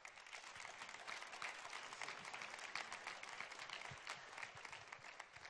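A congregation applauding: many people clapping, dying down near the end.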